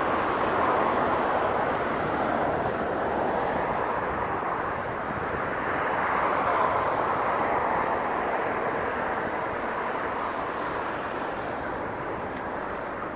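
Road traffic on a multi-lane city street: a steady hiss of tyres and engines. It swells as cars pass about a second in and again around six seconds, then slowly eases off.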